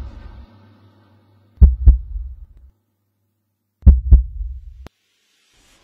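Heartbeat sound effect of trailer sound design: deep double thumps, two pairs about two seconds apart, with silence between them. The second pair's low tail stops abruptly.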